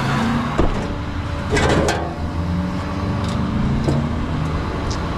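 A motor vehicle running steadily, with a sharp knock under a second in and a brief clatter around two seconds in.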